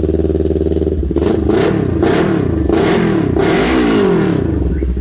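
Kawasaki Ninja 400 parallel-twin engine breathing through a titanium-finish full exhaust system. It idles, then is blipped about four times in quick succession, each rev rising and falling, before settling back to idle near the end.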